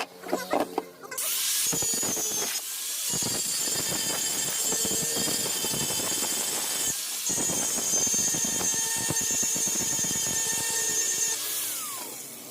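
Handheld power tool working metal with a high squeal. It stops briefly about seven seconds in, then starts again and winds down near the end. A few clicks come just before it starts.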